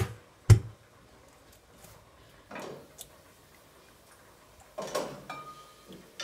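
An egg cracked against the rim of a glass bowl: a light tap, then a sharper knock about half a second in. Softer brief rustles of the shell being handled and pulled apart follow a few seconds later as the white is separated from the yolk.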